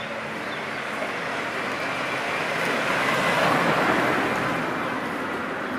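A car passing on a wet street: its tyres hiss louder up to a peak about three and a half seconds in, then fade as it moves away.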